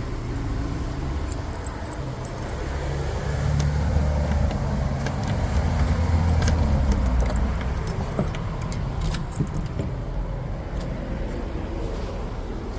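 A bunch of keys jangling in light, scattered clicks while the right key is sought. Underneath is a low rumble of road traffic that swells and fades as a vehicle passes in the middle.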